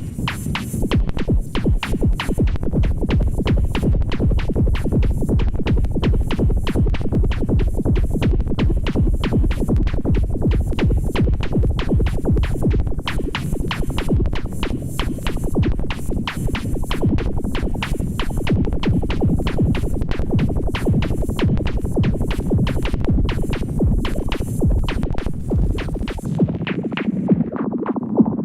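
Perkons HD-01 drum synthesizer playing a fast, steady electronic drum pattern: dense high ticking hits over a heavy low drum. About 26 seconds in, the high ticking drops out, leaving the low drum and a mid-range sound.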